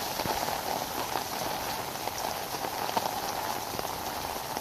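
Heavy rain falling steadily: a constant hiss dotted with many small drop impacts.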